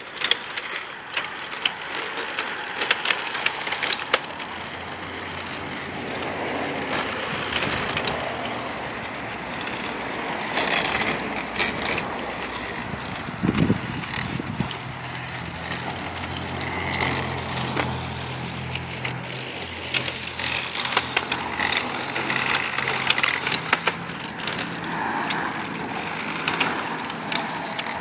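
Giant 3D-printed plastic RC vehicle driving about on asphalt: its drive motors and printed gears whirring and clattering, with tyres scuffing and scattered clicks and knocks from the plastic parts. A low steady hum runs for about ten seconds in the middle.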